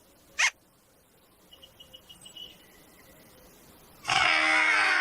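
Makka Pakka's toy trumpet letting out a loud, rasping blare about four seconds in, a comic noise effect that sounds like the trumpet is malfunctioning. A short rising squeak comes just before it, near the start.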